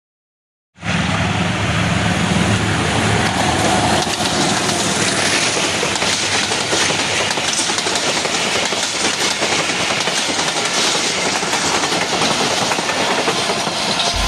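A train passing close by at speed: a steady loud rush and clatter of wheels on the rails and rolling coaches. It starts abruptly after about a second of dead silence.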